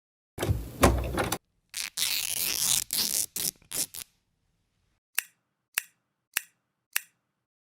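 Sound effects: a noisy burst with a low thud, about two seconds of broken scraping and rattling noise, then four short sharp clicks about 0.6 s apart.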